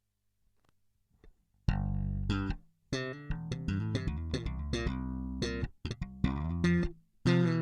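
Electric bass guitar, a Jazz Bass type with EMG pickups, played through a Boss BE-5B bass multi-effects pedal: a run of plucked notes starting about one and a half seconds in, with short breaks between phrases.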